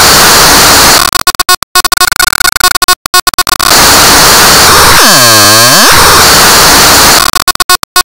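Loud, harshly distorted and clipped audio from an audio-effects edit. It is a solid wash of buzzing noise, broken three times by rapid stuttering cut-outs, with a whooshing flanger-like sweep that dips and rises back about five seconds in.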